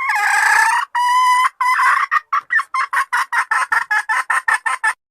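Domestic hen calling: a long held note, then a run of quick clucks that speed up to about five a second before stopping abruptly.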